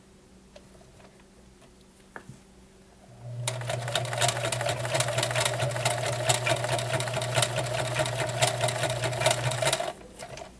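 Vintage Kenmore model 1941 convertible sewing machine stitching through five layers of thick denim. It starts about three seconds in, running steadily with a low motor hum under rapid needle clatter, and stops shortly before the end.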